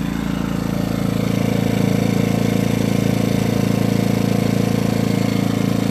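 Predator 2000 inverter generator's small single-cylinder four-stroke engine running steadily under a light load of about 200 watts, a little louder from about a second in.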